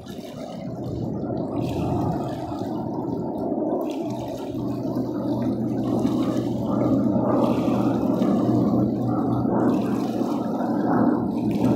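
Distant jet noise from Dassault-Breguet/Dornier Alpha Jets, whose twin turbofan engines give a rumbling roar that grows steadily louder as they approach, with a steady low hum joining in about four seconds in.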